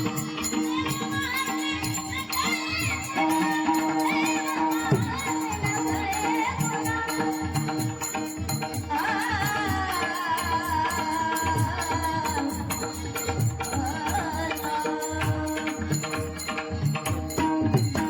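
Marathi bhajan: a woman's voice singing long, gliding notes over a steady drone, with a hand drum and jingling percussion keeping the rhythm.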